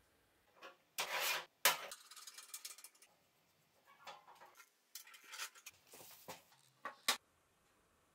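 Brass rods and a steel hinge block of a homemade compass being handled and fitted together. Short metal clicks and taps mixed with brief scraping and rubbing, in irregular bursts.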